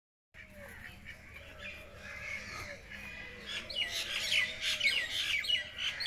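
Caged green parakeets calling: scattered chirps at first, then from about halfway a quick run of loud, shrill squawks, each falling in pitch, several a second.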